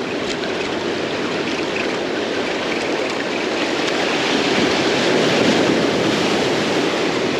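Ocean surf washing onto the shore, a steady rushing that slowly swells to its loudest about halfway through.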